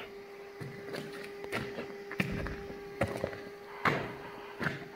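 Footsteps on a gritty, debris-strewn rock floor, about six evenly paced steps, over a faint steady hum.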